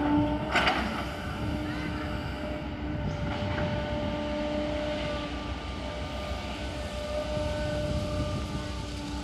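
Diesel engine running steadily, a droning hum that fades in and out over a low rumble, with a short rattle about half a second in.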